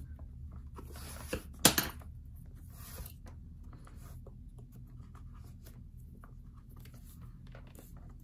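Leather lace drawn through the web holes of a baseball glove behind a metal lacing needle: rasping pulls in the first three seconds with one sharp click, then soft scratching and rubbing of leather as the lace is handled.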